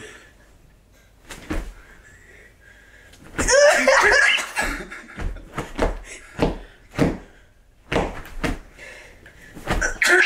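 A series of sharp knocks and thuds, about a dozen spread over several seconds, with a loud burst of a voice about three and a half seconds in.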